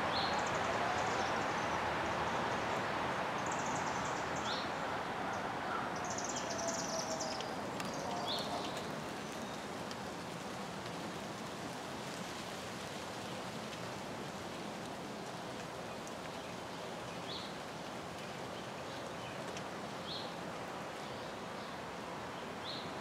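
Outdoor ambience: a steady hiss of background noise with a few brief high bird chirps scattered through. A faint hum glides slowly and fades out after about eight seconds.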